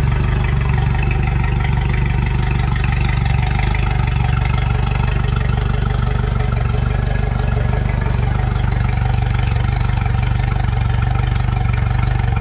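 Mercury 90 hp outboard idling steadily out of the water, fed cooling water from a garden hose.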